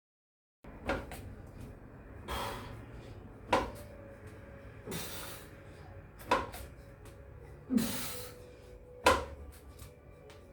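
A person working through pistol squat reps: a sharp knock followed by a hard, noisy breath out, repeating about every three seconds, four times.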